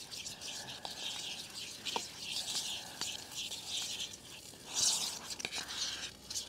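A utensil stirring thick pancake batter in a plastic bowl: irregular scraping strokes with a few light clicks against the bowl, loudest about five seconds in.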